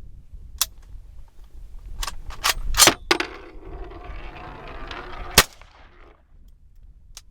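Two rifle shots from a Ruger Mini 14 in 300 Blackout firing Gemtech 187-grain subsonic rounds, about two and a half seconds apart, with smaller sharp clicks of the action before them. These are subsonic loads that, in this rifle, fail to cycle the action more often than not.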